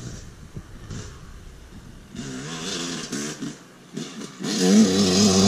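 Two-stroke dirt bike engine: a faint engine note wavering up and down in pitch about two seconds in, then a louder, steady engine note held at constant revs from about four and a half seconds in.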